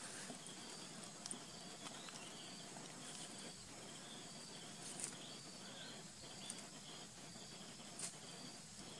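Faint forest ambience of insects chirring steadily, with a few short sharp clicks scattered through it.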